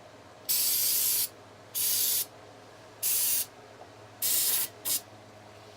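Aerosol brake cleaner spraying in five separate hissing bursts, four of them lasting about half a second to a second and a brief last puff, as it is sprayed on the rifle's parts to cut the grease and oil.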